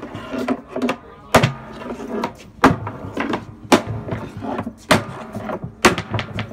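Hammer blows on the steel hoops of an oak wine barrel, driving the hoops along the staves to loosen them: sharp metallic strikes with a short ring, a heavy one about every second with lighter taps between.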